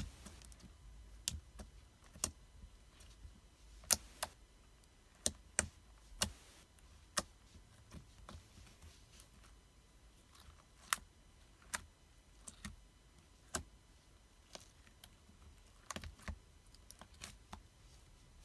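Hands working sticky homemade slime: scattered sharp clicks and small pops at an irregular pace, roughly one a second, with the loudest click about four seconds in.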